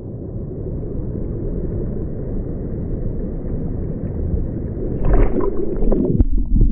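Waves in a wave pool washing toward the camera at water level, a dull, muffled rush of water that slowly grows louder. About five seconds in a wave breaks over the camera and swamps it, bringing louder, choppy splashing.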